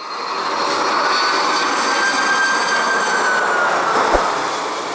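Jet airliner climbing out after take-off: a steady rushing engine noise with a high whine that holds, then dips a little and fades near the end. A short click about four seconds in.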